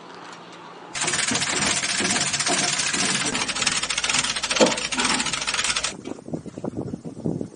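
Loud, steady engine-like mechanical noise that starts abruptly about a second in and cuts off abruptly near the end, followed by quieter rustling.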